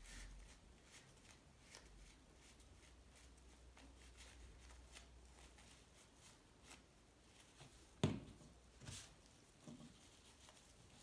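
Faint clicks and rustles of hands working on bicycle parts, with a sharp knock about eight seconds in and a softer one a second later.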